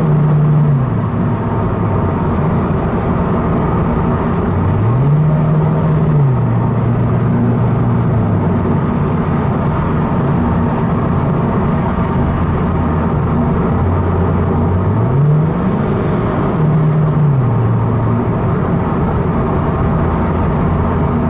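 Toyota GT86's 2.0-litre flat-four boxer engine heard from inside the cabin through a Perrin non-resonated cat-back exhaust, a steady low drone while driving. Twice, about five and fifteen seconds in, the revs climb, hold briefly and fall back.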